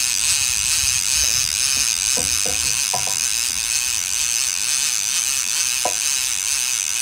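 Drum (baril) fishing reel being cranked to wind line onto its spool, giving a steady high whirring buzz.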